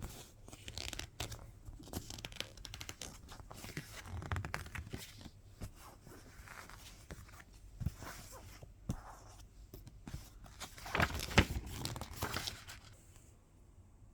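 Album packaging being unwrapped by hand: irregular tearing, crinkling and rustling of paper and plastic, with a louder burst of handling about 11 seconds in that stops about 13 seconds in.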